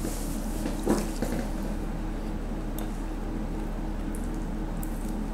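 Steady low electrical hum as room tone, with soft chewing and mouth sounds from someone eating fried breaded food, and one short, louder mouth sound about a second in.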